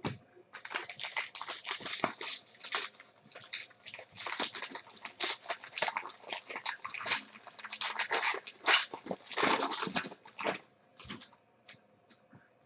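Foil wrapper of a trading card pack crinkling and tearing as it is ripped open by hand: a dense, crackly rustle that stops about ten and a half seconds in.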